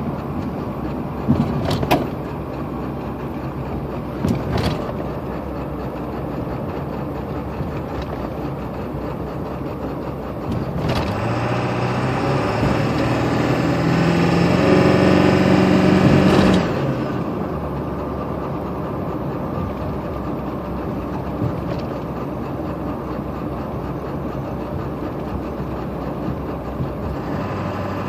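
7.3-litre V8 engine running at idle, revved up from about eleven seconds in with its pitch climbing for about six seconds, then dropping sharply back to idle. The owner reports a strange misfire on deceleration. A few sharp knocks sound in the first five seconds.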